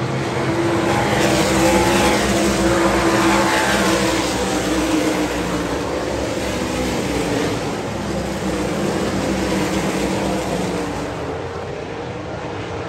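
Winged 358 sprint cars' V8 engines racing on a dirt oval, several cars at once, their pitch rising and falling as they pass close. Loudest about two to four seconds in, easing off near the end as the pack moves away.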